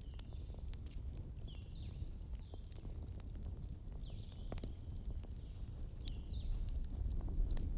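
Wood fire in a fireplace crackling, with scattered sharp pops over a steady low rumble. A few short, high chirping sounds come and go on top.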